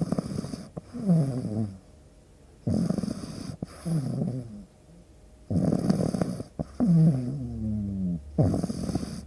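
Sleeping pug dog snoring, a breath about every three seconds, four in all. Each breath is a rasping snore followed by a shorter, pitched sound that glides in pitch.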